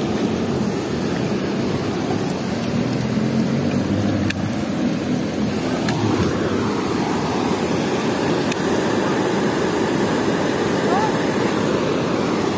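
Steady rush of water pouring through a river weir's sluice gate.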